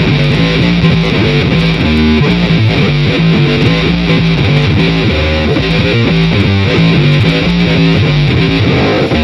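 Homemade disco-house demo track led by a distorted, strummed electric guitar (an Epiphone played through AmpliTube 4 amp simulation) over a steady, changing bass line. The uploader calls it out of tune and out of tempo.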